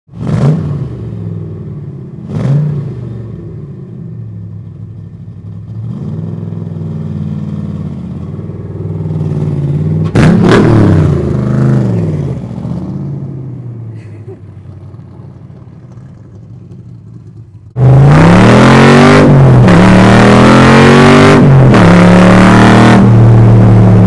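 Factory Five Racing Cobra replica's V8 through its side-exit exhaust, idling and blipped up several times, with the sharpest rev about ten seconds in before settling back to a steady idle. About eighteen seconds in it turns much louder, heard from on board as the car accelerates hard, the engine pitch climbing and dropping back twice as it shifts, over wind rush.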